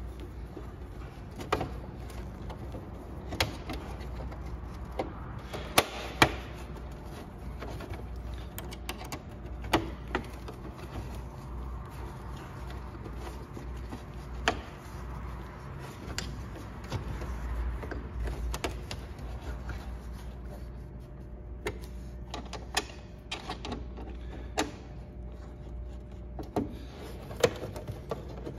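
Hex key and bolts clicking and tapping against the wheel-well panel as the fasteners are turned back in by hand: scattered sharp metallic clicks and knocks, a few seconds apart, over a low steady hum.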